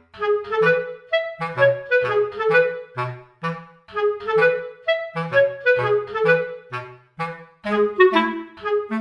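Background music: a bouncy tune of short, quick notes over a bass line with a steady beat.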